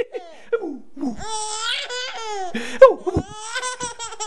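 A baby laughing in high-pitched bursts, starting about a second in and loudest near the three-second mark.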